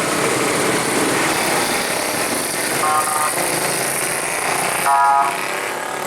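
Bus telolet air horn giving two short blasts of several tones sounding together, about three seconds in and again, louder, about five seconds in, over steady traffic noise.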